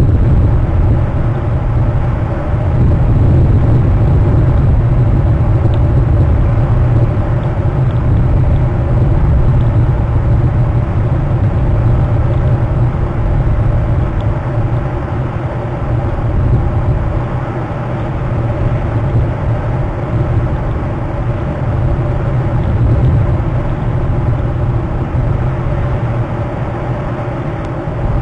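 Steady low outdoor rumble with slow swells in level and no distinct events, strongest in the bass.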